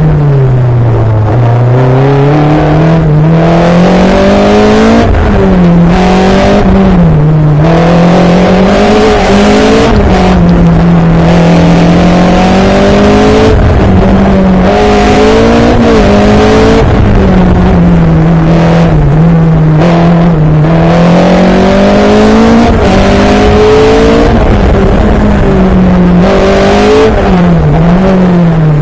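Onboard sound of a single-seater race car's engine, its pitch climbing under acceleration and dropping sharply at each gear change or braking point, over and over, with a steady rushing noise of wind and tyres.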